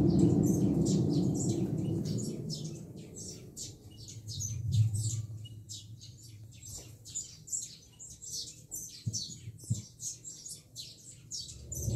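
A surround-sound demo soundtrack playing through a Pioneer HTP-076 home theater system: a low rumble fades away over the first few seconds, leaving rapid high-pitched chirping, with a brief low swell midway and a few soft low thuds near the end.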